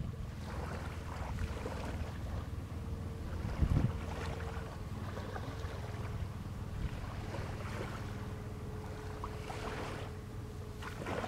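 Crab boat's engine idling with a steady low hum and a faint steady whine above it. Gusts of wind hit the microphone with low thumps, the strongest about four seconds in.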